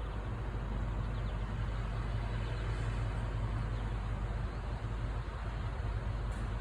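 Steady low rumble of an engine running at an even speed.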